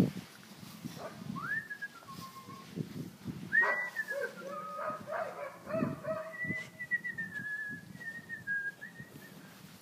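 A person whistling to call puppies: a short rising whistle, then a longer one that rises and falls about three and a half seconds in, then a long, slightly wavering held whistle near the end.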